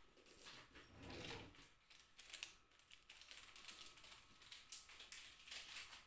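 Near silence with faint, irregular small clicks and a brief rustle about a second in, from a cat moving on a cat tree and across carpet.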